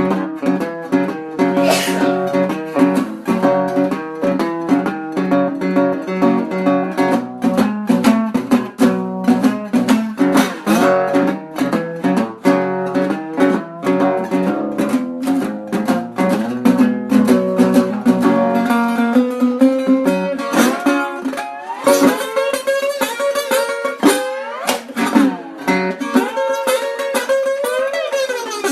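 Blues played on guitar: a busy run of quickly picked notes, with notes bending and sliding in pitch from about twenty seconds in.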